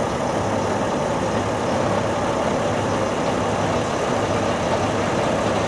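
Diesel railcar's engine idling steadily while stopped at a station, an even low hum with no change in pitch.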